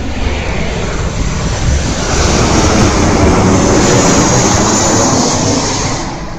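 Jet airliner passing low overhead on its landing approach to Osaka (Itami) Airport. The engine noise swells about two seconds in, peaks with a high whine, and fades near the end.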